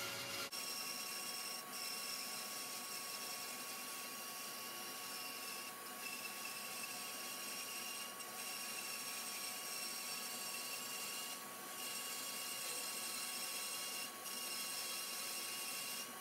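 Bandsaw with a narrow 6 mm curve blade cutting a curve through a thick wooden beam: a steady machine hum with the hiss of the blade in the wood, sped up to double speed.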